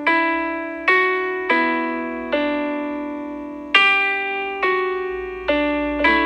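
Background music played on a piano-like keyboard: slow chords struck roughly once a second, each ringing and fading before the next.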